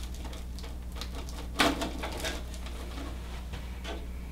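Handling noise from a PC watercooling loop's quick-disconnect fittings being undone: a few light clicks and one sharp knock about one and a half seconds in, over a steady low hum.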